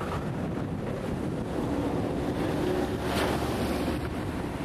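Wind buffeting the camcorder microphone over a steady rushing noise from the flooded river. A faint low hum joins partway through, and a stronger gust hits about three seconds in.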